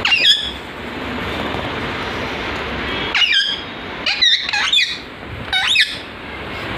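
Indian ringneck parakeet giving short, shrill, sliding calls: once at the start, again about three seconds in, a quick run of several between four and five seconds, and once more near six seconds. A steady background noise runs beneath.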